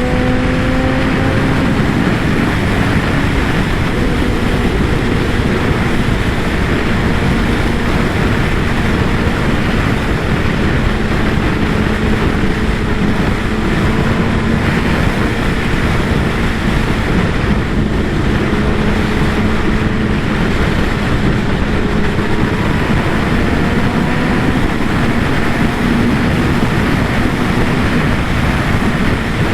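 Kawasaki ZX-10R's inline-four engine running at a fairly steady pace, its exhaust tone holding roughly level and drifting only a little, under heavy wind noise.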